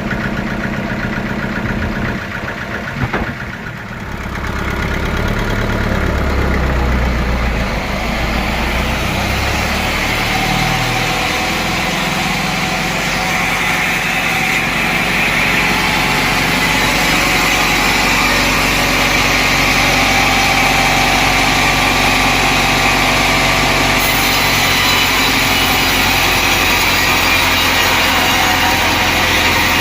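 Sawmill engine running steadily, with a brief knock about three seconds in. From about twelve seconds a louder steady hiss builds over the engine as the saw starts cutting wood.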